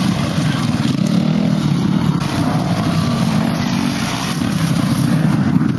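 Motocross dirt bike engines running and revving: a loud, rough, steady buzz with faint rises and falls in pitch.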